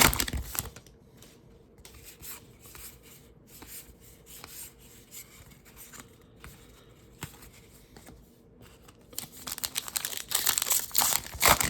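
Trading card pack wrapper being torn open and crinkled, loudest at the very start and again over the last two seconds or so, with quiet rustling and small ticks of cards being handled in between.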